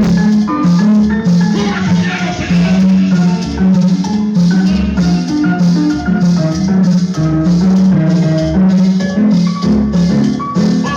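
Latin dance music with a steady beat, a rattling shaker and a mallet-like melody over a strong bass line.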